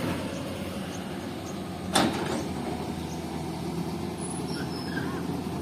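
Diesel engine of a Komatsu PC-200 excavator running steadily, with one sharp metallic clank about two seconds in.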